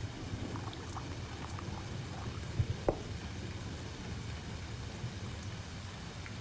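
Liquid poured from a small metal pot into a small brass cup, with faint trickling ticks, then two sharp knocks of metalware being set down on the table a few tenths of a second apart, over a steady low rumble.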